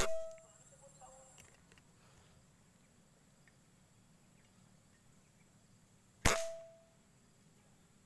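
Two shots from a homemade PCP air rifle, one right at the start and another about six seconds later, each a sharp crack with a brief ringing tail.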